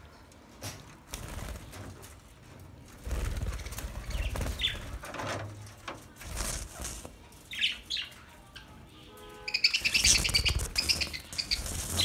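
Flock of budgerigars: wings fluttering in irregular bursts and short chirps. About two-thirds of the way through comes a loud spell of fast, repeated chattering chirps.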